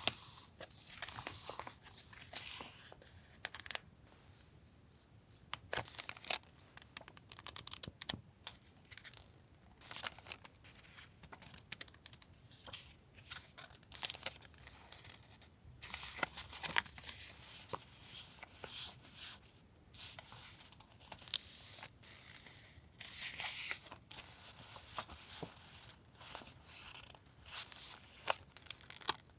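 Paper and plastic stationery packaging being handled: crinkling and tearing rustles broken by many small taps and clicks, stopping and starting throughout.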